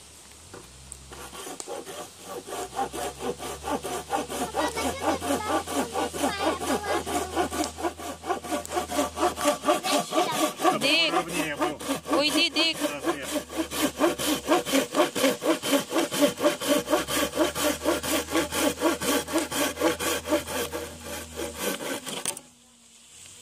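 Hand saw cutting across a wooden board with fast, even back-and-forth strokes, about three a second. It builds up over the first few seconds and stops suddenly near the end.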